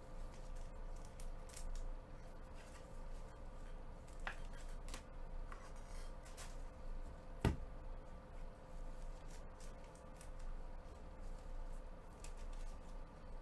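Trading cards being handled and laid on a table by gloved hands: scattered light clicks and rustles, with one sharper knock about seven and a half seconds in, over a faint steady hum.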